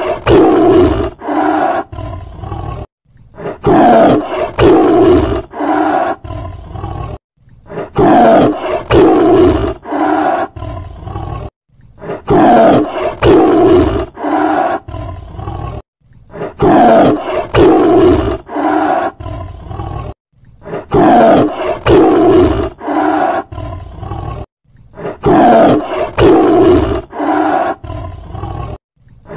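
Lion roaring: each bout opens with one loud roar and trails off in a run of shorter, weaker calls. The same bout repeats about every four seconds, with a brief silence between.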